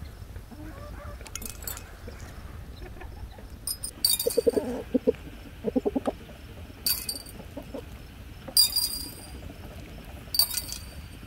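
Black peppercorns dropped by hand into empty glass jars, clinking sharply against the glass about four times. A chicken clucks in two short rapid runs, about four and six seconds in.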